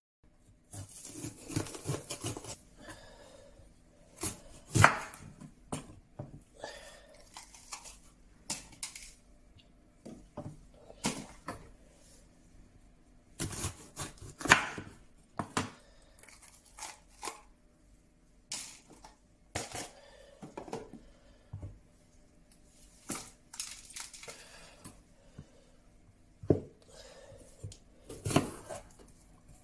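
Bell peppers being cut open and seeded with a knife on a wooden cutting board: irregular sharp knocks of the knife and peppers against the board, with short scraping noises in between.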